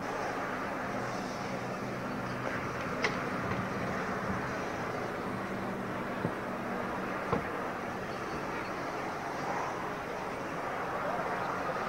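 Steady low hum and hiss of a locomotive at rest, with a few short sharp knocks.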